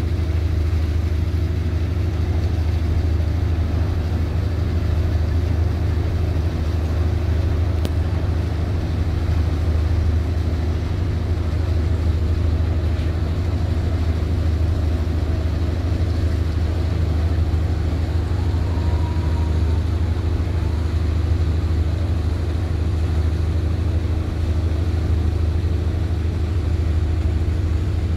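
Fast passenger ferry's engines running with a steady, deep drone as the vessel manoeuvres away from the pier. A faint short whistle-like tone comes about two-thirds of the way through.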